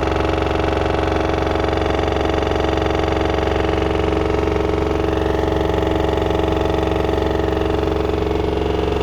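LG washer-dryer combo on its 1400 rpm spin, making a loud, steady, rapid hammering that sounds like a jack hammer. The machine is level, nothing outside is touching it, and the drum bearing has no play, so the cause is unexplained.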